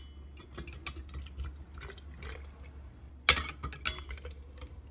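Ladle clinking and scraping against a stainless steel canning funnel as thick chicken pot pie filling drops into a glass quart jar, with a run of small clicks and one loud clank about two-thirds of the way through.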